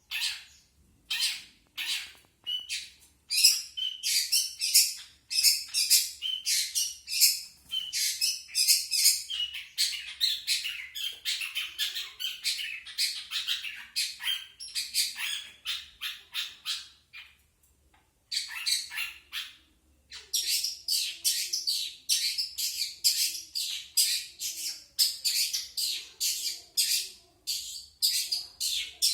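Long-tailed shrike (cendet) singing a long run of rapid, harsh, chattering high notes, several a second. The song starts out sparse, runs thick and fast, and breaks off for a moment about two-thirds through before picking up again.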